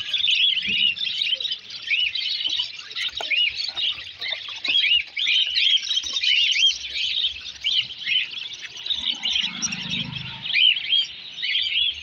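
A flock of budgerigars chattering in a crowded cage: many short chirps overlapping in a steady, busy chorus.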